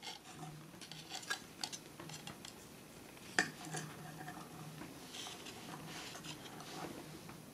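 Light plastic clicks and rattles from a Transformers Strafe action figure being handled and adjusted, with one sharper click about three and a half seconds in.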